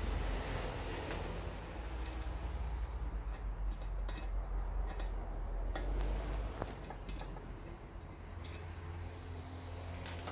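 Scattered light clicks and taps of tools and small metal parts being handled as a vintage electric fan is taken apart, over a steady low hum.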